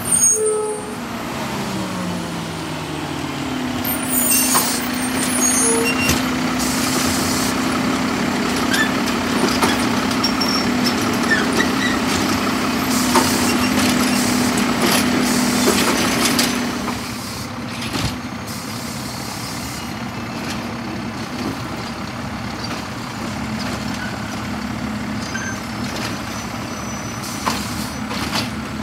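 Mack LEU garbage truck with a Heil Rapid Rail automated side-loader: a burst of air hiss and the engine slowing at the start, then the engine held at higher revs with a steady hydraulic whine and more air hisses for about twelve seconds while the arm grabs, lifts and dumps a cart, then dropping back to a lower steady run.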